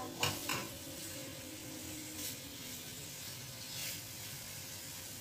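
Chicken sizzling in oil and curry paste in a frying pan while being stirred with a wooden spatula. The spatula scrapes and knocks against the pan a few times within the first second, then a couple more times later.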